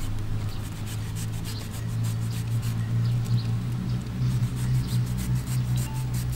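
Knife blade shaving and scraping the fibrous husk of a sugar palm (toddy palm) fruit in a quick series of short rasping strokes, over a steady low hum.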